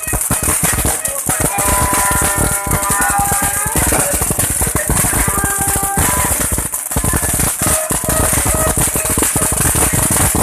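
Fireworks crackling densely and without a break over a steady high hiss. Several held tones sound for a couple of seconds about a second in.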